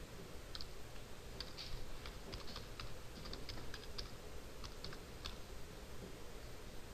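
Faint clicking of computer keyboard keys as a word is typed, a quick irregular run of keystrokes that stops about five seconds in.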